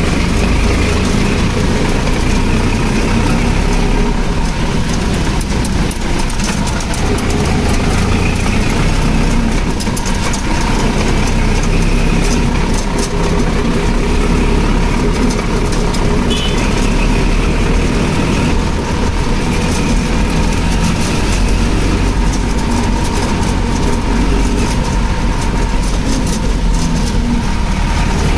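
Tractor diesel engine running steadily at an even speed.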